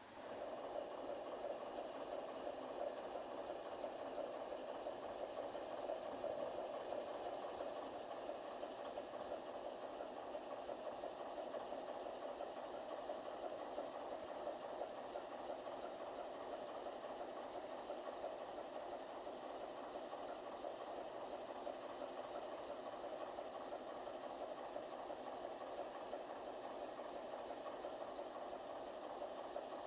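Diesel engine of a ChME3 shunting locomotive idling steadily.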